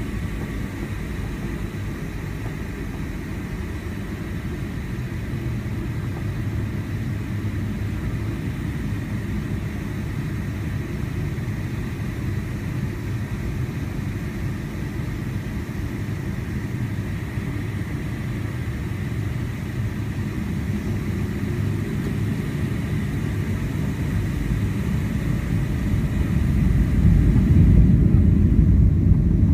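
Boeing 757-300's engines and rolling rumble heard inside the cabin, a steady low rumble with a faint thin whine. It builds gradually and grows much louder near the end as the engines spool up for the takeoff roll.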